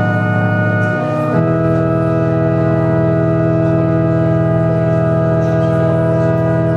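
Church organ playing held chords, changing to a new chord about a second and a half in and sustaining it.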